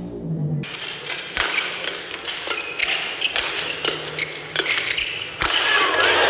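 Badminton rally: rackets striking the shuttlecock in sharp hits every half second to a second. A music track cuts off just after the start, and crowd noise swells about five seconds in.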